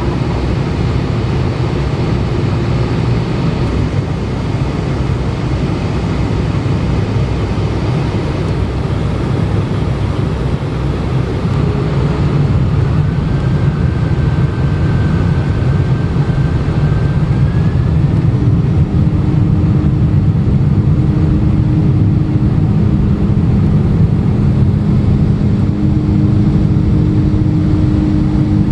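Airliner's jet engines running with a steady low rumble during the takeoff run. The rumble grows louder partway through, and steady engine tones come in during the second half.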